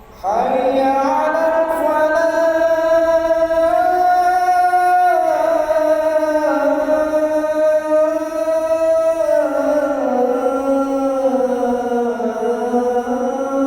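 A muezzin's unaccompanied voice chanting the adhan (Islamic call to prayer) in the Kurdi maqam, with no added effects. One long phrase starts abruptly just after the beginning and is held throughout, its pitch slowly rising and falling.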